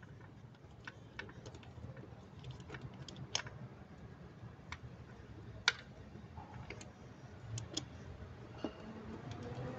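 Scattered, irregular light clicks and taps of a screwdriver working on metal fasteners and parts in an engine bay, the sharpest click a little past halfway, over a low steady hum.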